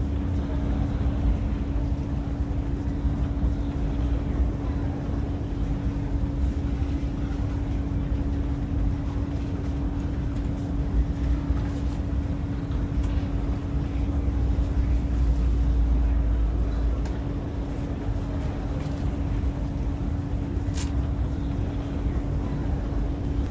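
Steady low rumble and a constant hum inside the cabin of the Whoosh high-speed train, the rumble swelling briefly about two-thirds of the way through, with a single sharp click near the end.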